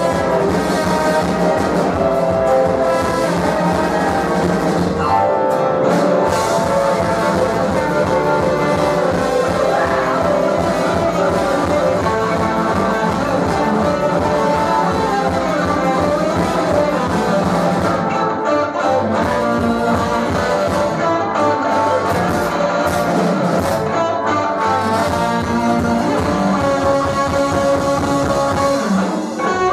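Live band playing a loud passage with a brass section and guitar over a steady drum beat; the bass and drums drop out briefly a few times.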